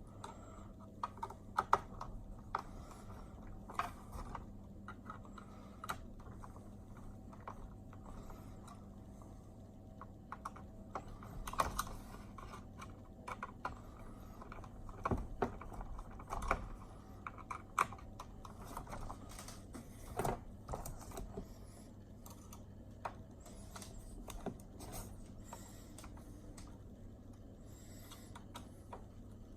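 Irregular small clicks and taps of a 2.0 mm hex driver and screws being worked into an RC truck's parts, over a faint steady low hum.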